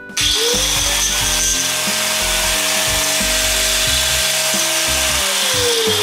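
Sanko Mitachi MG-125SAD angle grinder switched on about a quarter second in: its motor whine rises and holds while the gears inside rattle loudly, a sign of badly worn gear teeth. It is switched off near the end and its whine falls as it winds down.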